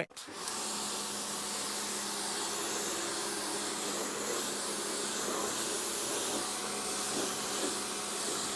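Pressure washer spraying water steadily, rinsing citrus pre-wash off a car's paintwork, with a steady motor hum under the hiss of the spray. It starts about half a second in.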